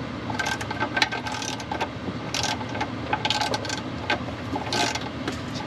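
Ratchet wrench clicking in several short bursts, run on the bolts of a manual-transmission bell housing as they are tightened.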